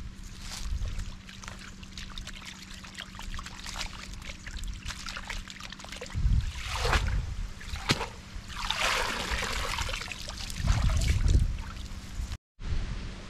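Water sloshing and splashing as a woven bamboo basket is swished and rinsed in shallow pond water, with several louder splashes from about six seconds in. The sound cuts out briefly near the end.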